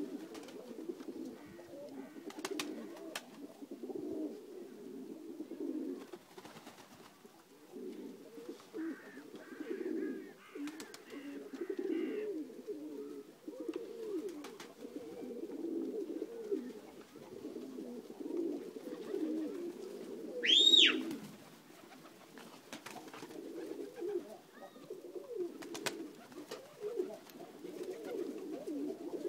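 A flock of Macedonian dunek pigeons cooing continuously, a low rolling murmur of overlapping coos. About two-thirds of the way through comes one short, loud, high whistle that rises and then falls.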